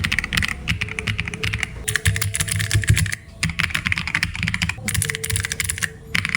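Fast typing on a Royal Kludge RK R65 mechanical keyboard: rapid runs of key clicks and clacks, with short pauses about three seconds in and near the end.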